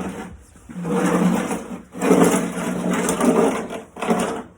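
A small electric motor running in three short bursts, the last one briefly, with a steady hum under a rough whirring noise.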